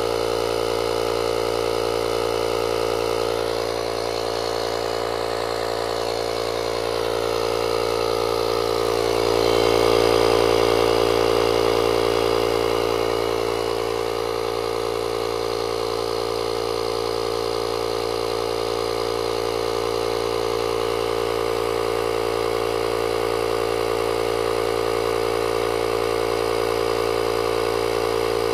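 The built-in 12-volt air compressor of a JFEGWO 6000A jump starter running steadily while it inflates a trailer tire, a continuous motor-and-piston drone. It swells a little louder about ten seconds in.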